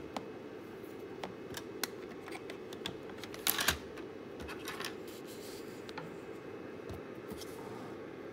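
Plastic lab equipment and banana-plug leads handled on a table: a decade resistance box picked up and set down, with scattered small clicks and knocks and a louder scrape about three and a half seconds in, over a steady low hum.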